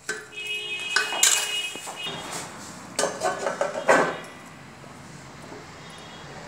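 Steel plate clanking against a steel kadhai as it is set on as a lid: about four sharp metal strikes in the first four seconds, each followed by a brief ringing. After that only a steady low hiss remains.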